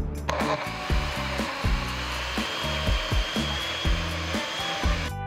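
Magic Bullet mini blender motor running while the cup is pressed down, blending a sauce; it starts suddenly just after the beginning and cuts off just before the end, with a faint high whine in the middle. Background music with a steady beat plays underneath.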